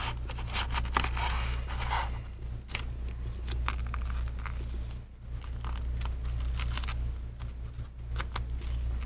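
Shattered iPad screen glass crackling and crunching as a thin metal pry tool scrapes it and peels it away from the adhesive, a string of short sharp crackles and scrapes.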